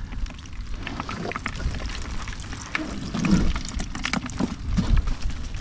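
Water splashing and pouring, with scattered small taps and a low wind rumble on the microphone.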